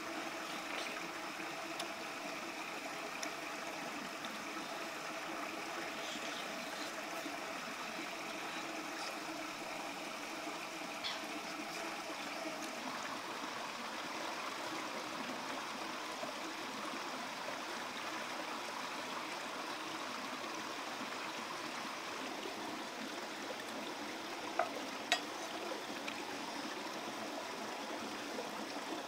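Shallow rocky stream rushing and trickling over stones in a steady wash. Two short, sharp clicks come near the end.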